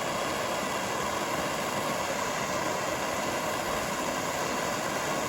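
Propane torch burning with a steady hiss while its flame heats a copper pipe for soldering.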